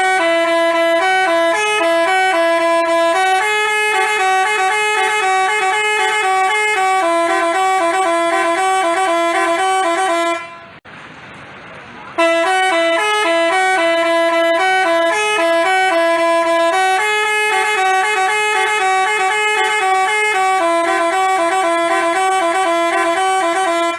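Basuri telolet musical bus horn playing a quick stepping melody, the same tune twice with a short break about ten seconds in.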